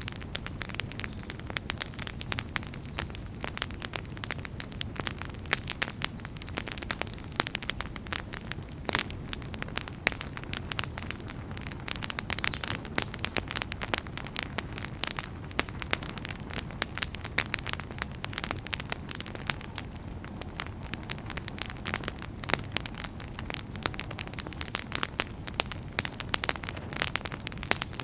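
Wood fire crackling steadily: dense, irregular sharp pops and snaps over a low, steady rumble of flame.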